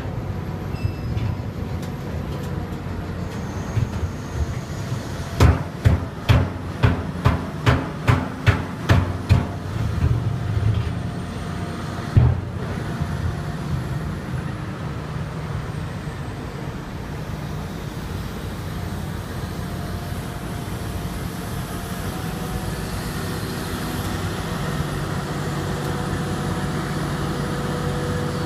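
Hitachi Zaxis 350LC excavator running steadily. About five seconds in comes a rapid run of about nine sharp knocks, roughly two a second, from the telescopic arm working in the pit, then one more knock a few seconds later. Near the end the engine note rises and strengthens as the machine comes under load.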